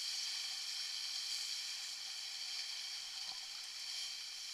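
Steady hiss of water rushing and spraying along the hull of a Buzz sailing dinghy moving at speed.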